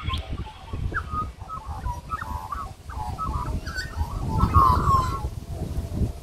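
Several birds calling with short chirps and squawks, busiest about halfway through, over a loud, uneven low rumble on the microphone.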